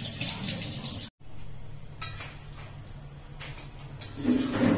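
Fish curry simmering in an aluminium kadai: a few faint pops over a steady low hum. There is a brief gap in the sound about a second in, and a louder handling noise near the end.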